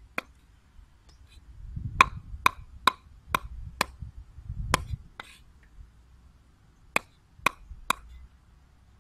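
Cleaver chopping chicken feet on a round wooden cutting board: about ten sharp chops, a quick run of roughly two a second in the middle, a pause, then three more near the end.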